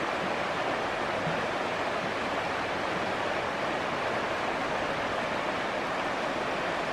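Shallow river water rushing steadily over rocks, an even unbroken rush.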